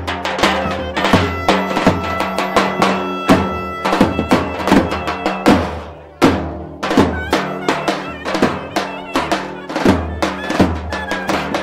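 Traditional Turkish folk music: a drum struck in a steady beat under a reedy wind-instrument melody. The music dips briefly about six seconds in and comes back on a hard drum stroke.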